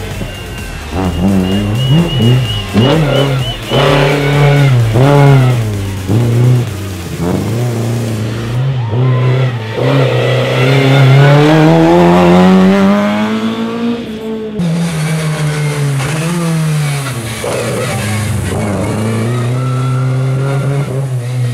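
Lada 2101 rally car's four-cylinder engine revving hard, the pitch repeatedly climbing and dropping with gear changes and throttle lifts, then one long climb in revs about halfway through that breaks off suddenly. A high squeal, tyres sliding, sounds over the first few seconds.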